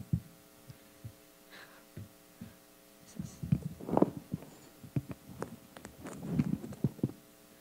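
Handling noise from a live handheld microphone being gripped and fitted to its stand: irregular low thumps and knocks, a few sharper clicks, over a faint steady electrical hum.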